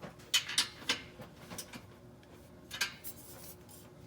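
Short sharp metallic clicks and clinks of a wrench working the exhaust clamp bolts as they are tightened. The clicks come in two quick clusters, one about half a second in and another near three seconds.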